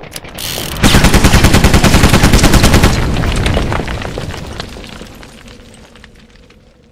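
Sound-effect burst of rapid machine-gun fire, about two seconds of fast, evenly spaced shots starting about a second in, then fading away over the next few seconds.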